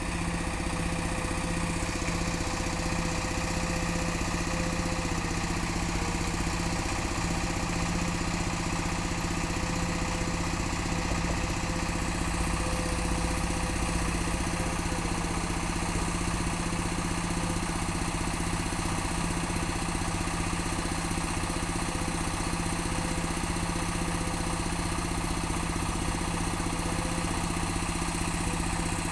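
Sumitomo hydraulic excavator's diesel engine running steadily, with a faint whine that wavers slightly in pitch above it.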